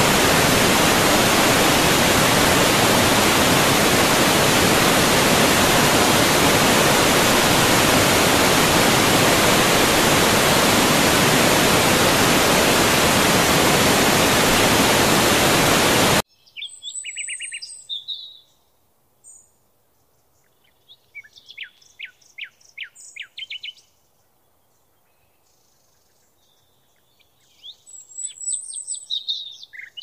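Waterfall rushing, a loud steady noise, cuts off suddenly about sixteen seconds in. Then birds chirp and trill in short phrases against near quiet.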